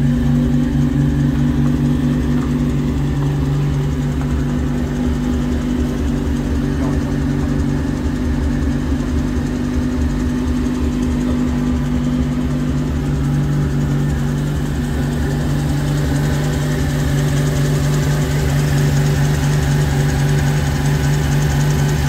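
Mazda 13B bridgeport turbo rotary engine idling steadily, its note changing slightly about halfway through. The owner reports some faulty injectors on this engine.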